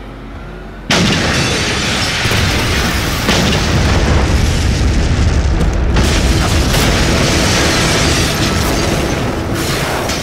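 A bus bomb going off: a sudden loud explosion about a second in, then a long loud roar of the blast, with further crashes about every three seconds. Music comes up beneath it near the end.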